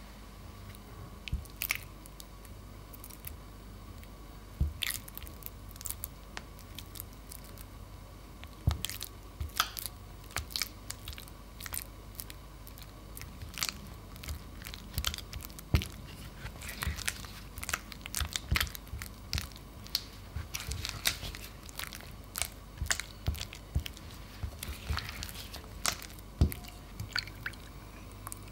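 Cream cheese being beaten by hand in a glass bowl: irregular clicks and taps of the utensil against the glass, with soft squishing of the cheese, coming more thickly after the first several seconds.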